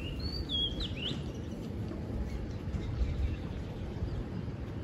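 A bird's few short whistled chirps, sliding up and down in pitch, in the first second, over a steady low rumble of wind on the microphone.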